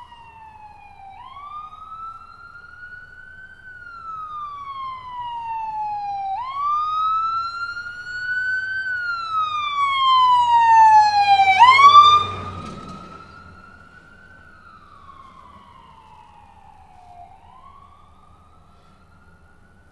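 Emergency vehicle siren on a slow wail, each cycle rising quickly and falling slowly over about five seconds. It grows louder as the vehicle approaches, is loudest about twelve seconds in, then fades as it passes and moves away.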